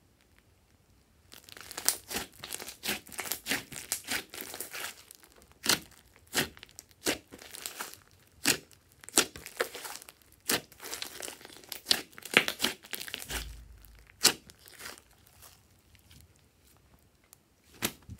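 Hands kneading, pressing and stretching glossy slime, giving a rapid run of sharp, sticky clicks and crackling pops. It starts about a second in and thins out to a few pops in the last few seconds.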